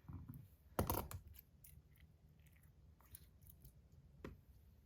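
Scattered small clicks and handling rustles of metal Top C fidget clickers being taken out of their cases, with a louder clatter about a second in.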